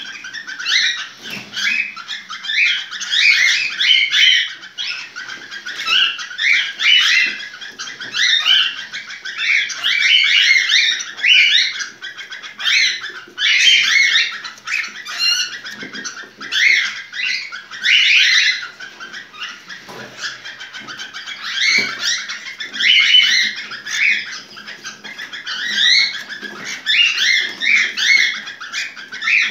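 Cockatiel chirping and warbling in quick, high-pitched phrases that swell and fade every second or two, the vocalizing of a bird in breeding condition (in heat).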